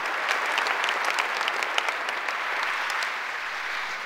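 Large audience applauding, many hands clapping at once; the clapping thins out and fades near the end.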